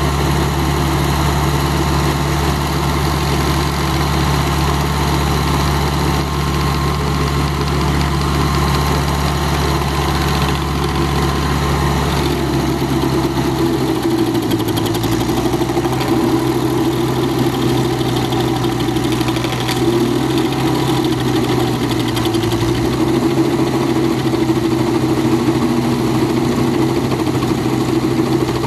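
Vermeer 630 stump grinder's air-cooled gasoline engine running steadily. Its note changes about halfway through, as the cutter wheel is brought to the stump.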